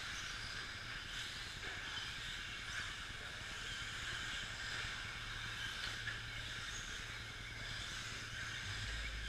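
Several 2WD radio-controlled short course trucks racing on an indoor dirt track: a steady hiss and whine of their electric motors and tyres.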